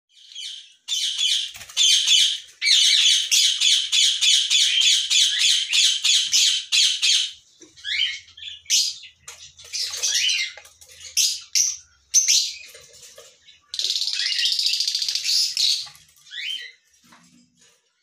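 Lovebirds calling: a long run of rapid, high-pitched squawking calls, then shorter separate calls, and another quick run near the end.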